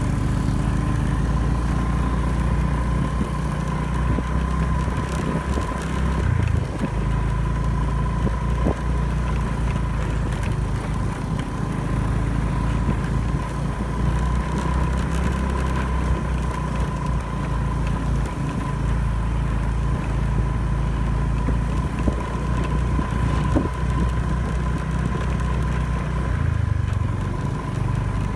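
Scooter engine running while riding, heard from the rider's own bike, with a steady high whine over it; the engine note changes about six seconds in and again near the end.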